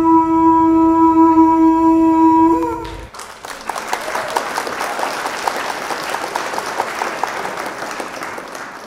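One long, steady horn blast lasting about three seconds, followed by applause that fades away near the end.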